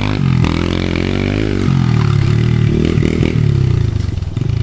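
Honda XR100 pit bike's single-cylinder four-stroke engine revving as the bike pulls away and rides off, its pitch rising and falling several times as the throttle is opened and eased.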